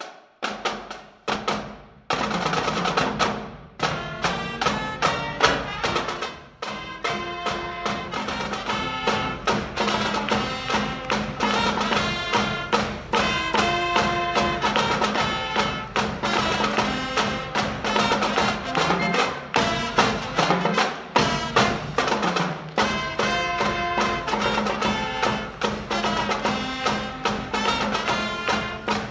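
Marching band playing: a few separate drum strokes, then brass and drums enter together about two seconds in and play on.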